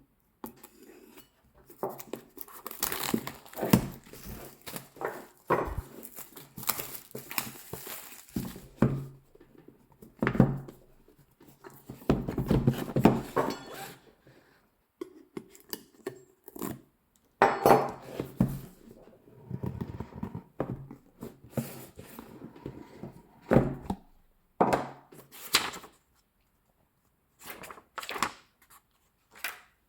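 Cardboard box and packaging being opened and handled: rustling, crinkling and light knocks in irregular bursts with short pauses.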